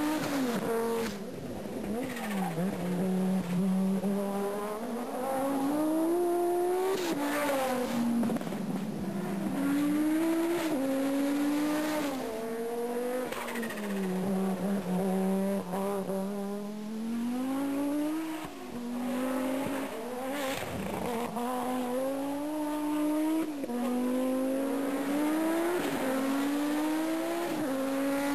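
Audi S1 rally car's turbocharged five-cylinder engine driven hard, its pitch repeatedly climbing under acceleration, then dropping sharply at gear changes and easing off for corners, with a few short sharp cracks in between.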